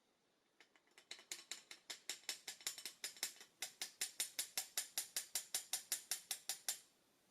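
A small ratcheting mechanism clicking rapidly and evenly, about five sharp clicks a second, with a short break midway.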